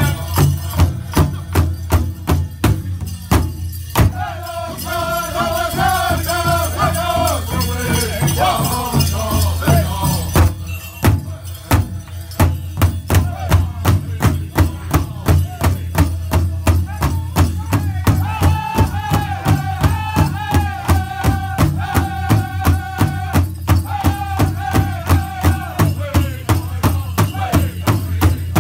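A powwow drum group beating one large shared hide drum in unison, a steady beat of about two to three strokes a second, with the group singing high over it. The singing comes in two long stretches, and the beat falters briefly about eleven seconds in.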